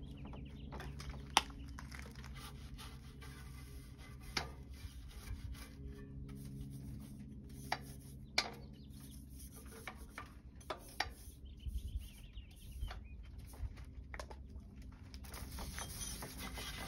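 Steady low hum of a Seaflo 12-volt 3 GPM water pump running while a coil hose sprayer washes a bicycle, with scattered short clicks and a brief hiss of spray a little past the middle.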